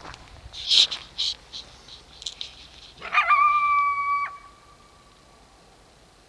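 Coyotes calling: a few short, sharp yips in the first couple of seconds, then a single howl about three seconds in, held on one steady pitch for just over a second before breaking off.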